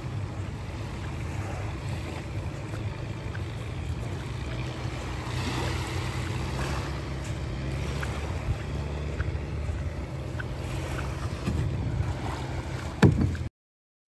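Passenger ferry under way: a steady low engine hum with rushing water and wind over it. A sharp knock comes near the end, then the sound cuts off suddenly.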